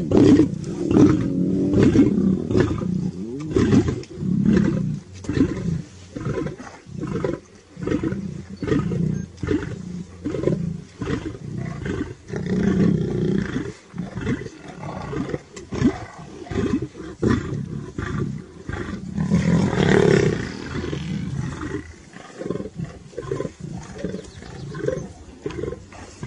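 Lions growling at each other while feeding together on a buffalo calf: deep growls in irregular repeated bursts, loudest near the start and again about twenty seconds in.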